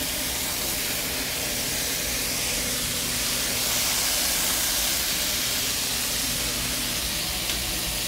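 Raw bacon strips sizzling on a hot, oiled Blackstone steel griddle top: a steady, bright hiss that swells slightly midway as more strips are laid down.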